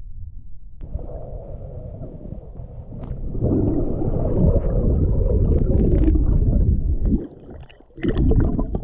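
Muffled gurgling and bubbling water heard from in or at the water, swelling loud in the middle and cutting off suddenly, then a shorter loud burst near the end.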